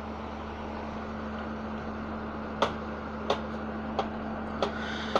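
Steady hum of an all-terrain tracked vehicle's engine idling. From about halfway through come five sharp knocks, evenly spaced roughly two-thirds of a second apart.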